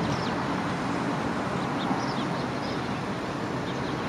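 Steady hum of city traffic, with small birds chirping over it now and then.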